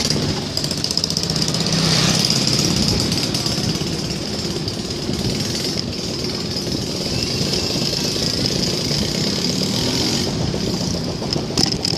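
Continuous fast rattling and rumbling of an onthel bicycle being ridden over a rough road, with a steady high hiss throughout.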